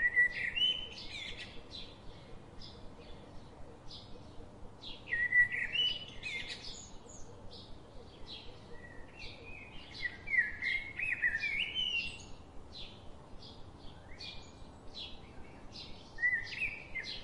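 Birds singing: short high chirps repeating throughout, with louder warbling phrases that come and go every few seconds.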